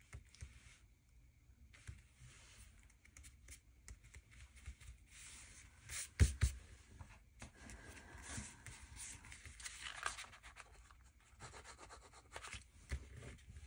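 Hands rubbing and smoothing glued paper down onto an index card, a faint dry scraping of skin on paper, with one sharp knock about six seconds in.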